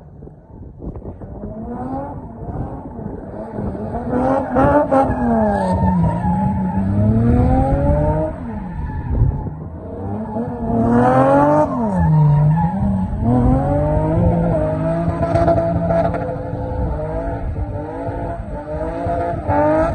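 Car engine revved hard while the car spins doughnuts, its pitch repeatedly falling and climbing, over the squeal and scrub of the rear tyres. It starts quieter and builds within the first few seconds.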